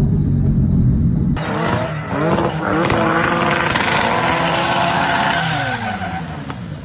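Twin-engine, twin-turbo Mazda MX-3 driven hard while drifting: the engine revs climb and drop over a steady tyre and road noise. The sound changes abruptly about a second and a half in, and the revs fall away near the end.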